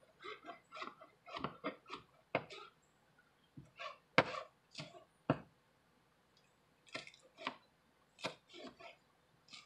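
Chef's knife chopping fresh cilantro on a plastic cutting board: irregular knocks of the blade on the board in three runs, with short pauses between them.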